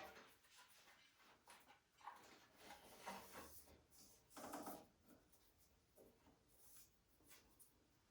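Faint scattered rubs and clicks of hands working a serpentine belt onto the motor and arbor pulleys of a SawStop contractor table saw, otherwise near silence. The longest rub comes about halfway through.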